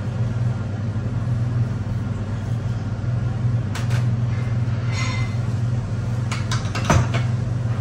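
Steady low mechanical hum of kitchen machinery, with a few light clinks and knocks of containers and the mixer bowl being handled, the sharpest knock about seven seconds in.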